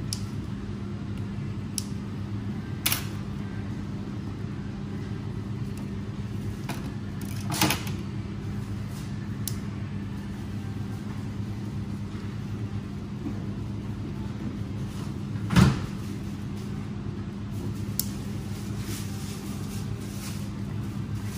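Steady low background hum with a few short sharp knocks and clatters, the loudest about two-thirds of the way through.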